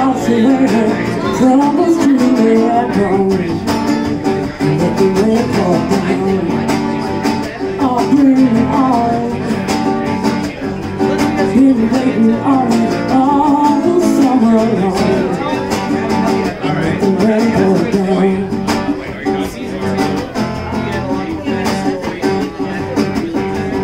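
Live acoustic guitar strummed along with a woman singing into a microphone, a slow country-style song.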